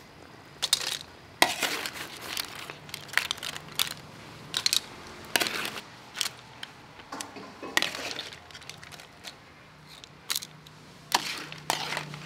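Cooked razor clam shells clattering against a metal ladle and a stainless steel mesh strainer as they are scooped from a wok and tipped in, with irregular clicks and clinks.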